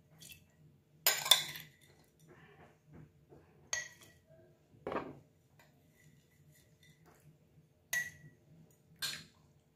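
Metal spoon clinking against a glass jar while chopped chili peppers are spooned in: about five separate knocks, some with a brief ringing tone, the loudest about a second in.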